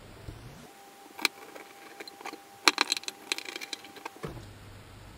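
Sharp clicks and knocks of a filleting knife and mackerel being handled on a plastic chopping board, a few single taps and a quick cluster near the middle, over a faint steady hum.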